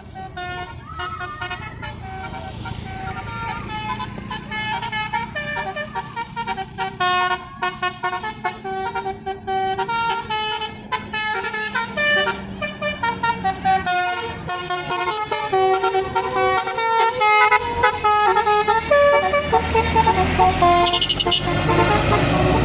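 A bus's multi-tone Basuri 'telolet' musical horn playing a fast tune of short notes that step up and down, over a low rumble. It grows louder toward the end.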